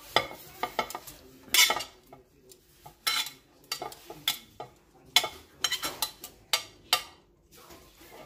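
Metal tongs scraping and clicking against a ceramic plate in a quick, irregular run of sharp scrapes as chopped smoked turkey is pushed off the plate.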